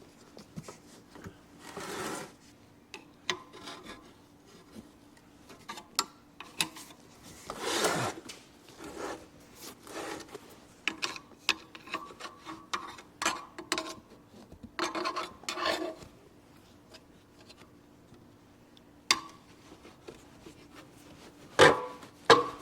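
Irregular metal scraping and sharp clinks as a screwdriver pries stout springs off a mower seat's spring suspension. The loudest clanks come near the end.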